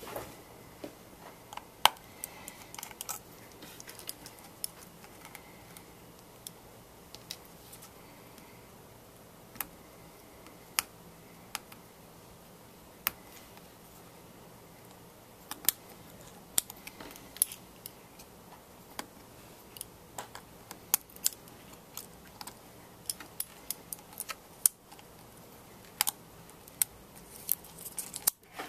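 Irregular small clicks and taps of a precision screwdriver and small tools on the tiny screws and metal frame of an iPhone 5 as the screws holding its logic board are taken out. The clicks are sparse at first and come more often in the second half.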